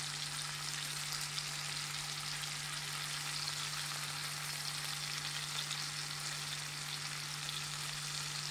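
Prawns shallow-frying in hot oil in a nonstick pan: a steady sizzle, while a spatula turns them over once they are browned on one side.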